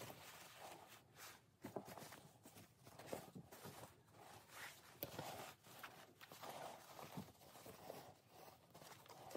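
Faint, irregular rustling and soft brushing of silk tsumugi kimono fabric being laid out and handled, with a few light taps.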